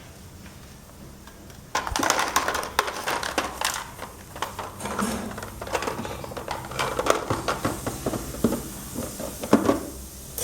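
Small plastic toy food pieces being handled and rummaged through, giving a busy run of light clicks, knocks and rustles that starts about two seconds in.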